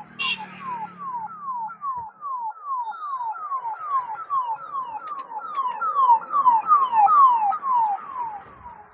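Electronic warning sound: a chain of short, quickly falling tones, about three a second, like a siren or alarm. It grows louder a little past the middle of the sound.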